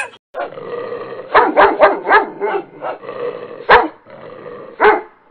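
Dog barking: a quick run of four or five barks, then two single barks about a second apart.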